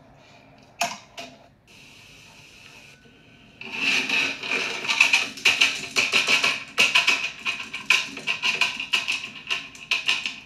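Dry dog kibble rattling and clattering as a scoop digs into a plastic storage bin full of it, a dense run of sharp rattles starting a few seconds in. There is a single sharp click about a second in.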